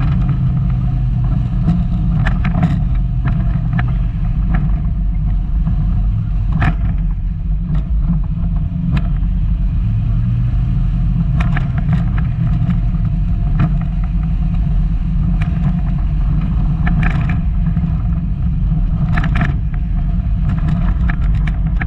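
Volkswagen Golf Mk2 driving off road: a steady low engine and road rumble, with irregular knocks and rattles from the car jolting over rough ground.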